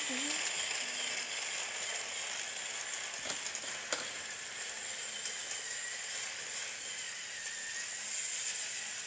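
Battery-powered Tomy Percy toy train running slowly along plastic track pulling trucks: a faint, steady whirr and hiss from its small motor and gears, with a couple of light clicks about three and four seconds in.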